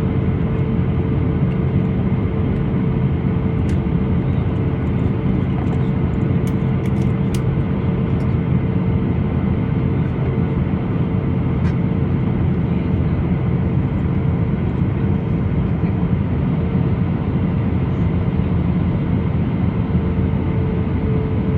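Airbus A320-214 cabin noise in flight: a steady drone of engine and airflow with a constant hum running through it. A few faint clicks come about six to eight seconds in.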